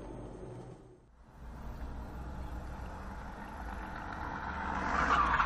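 Car road and engine noise recorded by a dashcam inside a car in traffic: a steady rumble that drops out briefly about a second in, then grows gradually louder toward the end.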